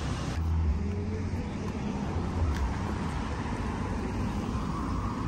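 Street traffic noise: a steady low rumble of cars on the road.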